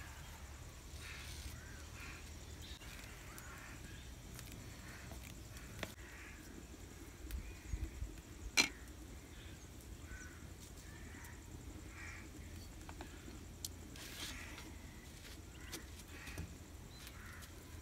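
Quiet rural ambience with faint, scattered bird calls, and a few soft knocks followed by one sharp clink of a metal spoon against an aluminium pot about eight and a half seconds in.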